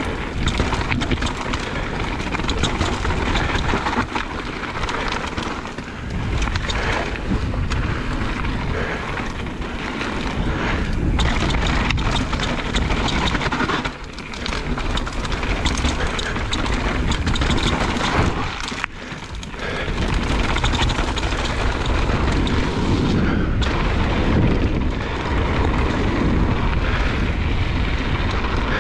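Mountain bike riding fast down a trail: wind buffeting the microphone, over the rumble of the tyres and the rattling and knocking of the bike on rough ground. The noise drops briefly twice.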